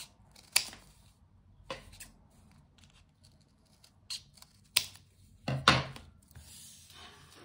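Scissors snipping through several layers of folded paper: a handful of sharp, separate cuts at uneven intervals, the loudest just before the end.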